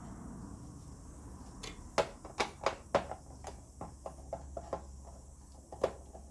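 Irregular light clicks and taps, several a second, from parts being handled during a projector teardown, the sharpest ones around two to three seconds in, over a low steady hum.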